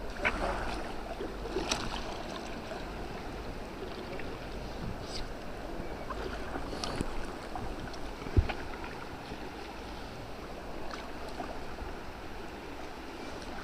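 Moving river water with light splashing around a kayak, steady throughout, with scattered small knocks and one sharper knock about eight seconds in.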